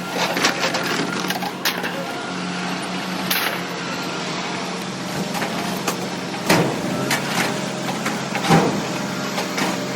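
Pieces of scrap metal being unloaded from a trailer and dropped onto the ground, a series of irregular clanks and knocks, over a steady low hum from a running vehicle engine.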